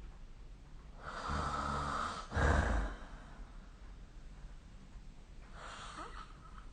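A sleeping person snoring: one low, rattling snoring breath about a second long, running straight into a shorter, louder snort, then a much fainter breath near the end.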